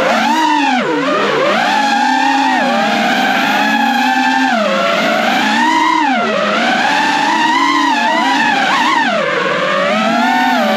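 FPV quadcopter's brushless motors whining, their pitch swooping up and down again and again as the throttle is pushed and pulled back during freestyle flying.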